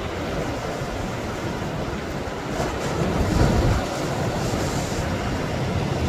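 Strong wind buffeting the microphone over waves breaking and washing around rocks, a steady noisy rush with a deep rumble. It swells to its loudest about three to four seconds in.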